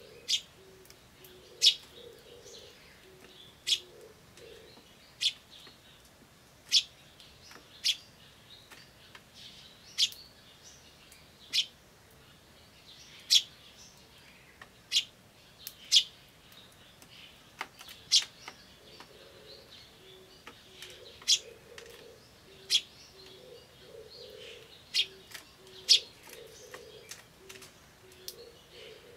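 Eurasian tree sparrow chick giving single short, sharp chirps every second or two. The chirping is feeble, which the uploader wonders is the chick tiring from calling. An Oriental turtle dove coos low and rhythmically in the background at the start and again from about two-thirds of the way in.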